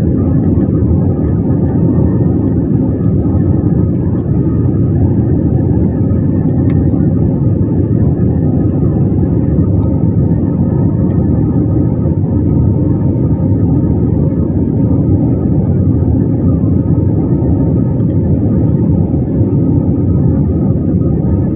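Steady rumble of an Airbus A320's jet engines and airflow heard inside the passenger cabin, unchanging throughout, with a faint steady hum over the low roar.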